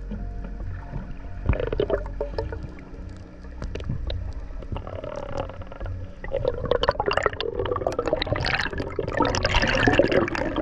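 Underwater sound heard through an action camera's housing: scattered clicks and pops, then a rush of bubbles and gurgling water that grows louder over the last few seconds as the camera nears the surface.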